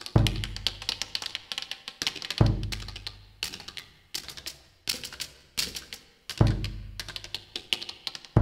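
Percussion music over the credits: a deep drum hit about every two seconds, under quick, dry tapping and clicking.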